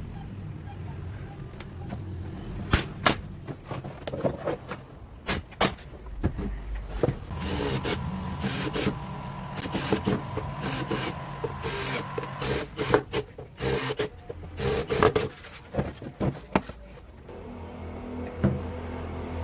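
Workshop tool work: irregular knocks, clicks and scraping, with a steady low hum underneath. A faint steady whine runs for a few seconds in the middle.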